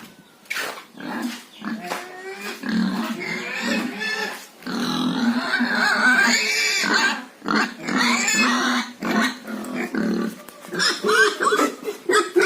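Pigs grunting and squealing in short, irregular calls, with a longer loud stretch of calling in the middle.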